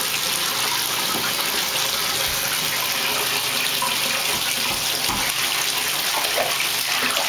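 Bathtub faucet running: a steady stream of water pouring from the spout into a filled tub.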